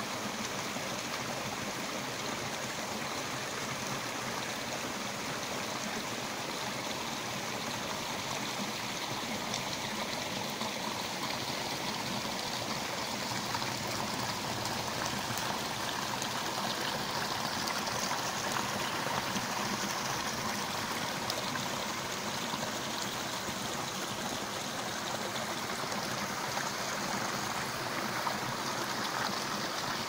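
Water of a small stream flowing and trickling over rocks, a steady splashing that stays even throughout.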